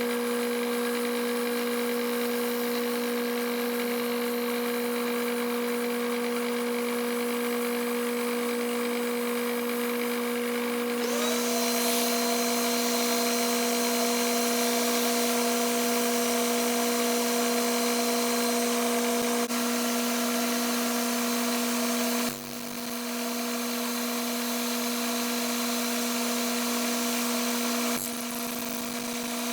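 Bridgeport milling machine running with a 3/8-inch two-flute high-speed end mill, taking passes in a piece of Lexan. A steady motor hum runs throughout; about eleven seconds in, a higher whine joins and the sound grows a little louder. It drops briefly twice in the second half.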